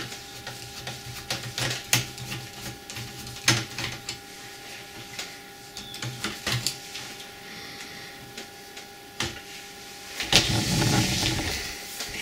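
Screwdriver and fingers working on a cassette deck's casing to take out a screw: scattered small clicks and taps over a faint steady hum, with about two seconds of rustling handling noise near the end.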